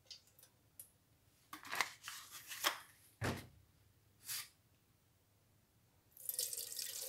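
Liquid poured into a tin can holding brass tap parts: a few short splashes and a thump about three seconds in, then from about six seconds a steady stream of water poured from a glass bottle into the can.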